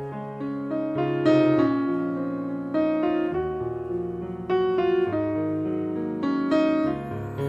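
Background music: piano playing a slow melody, notes struck one after another and left to ring.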